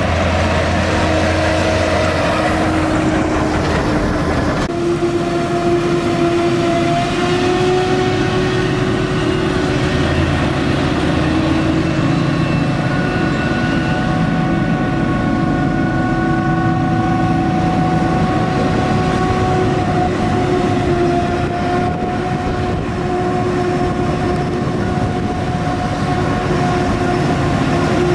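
Claas Jaguar 950 self-propelled forage harvester chopping maize, with a tractor and silage trailer running alongside: a loud, steady engine drone under a high whine. The sound changes abruptly about five seconds in.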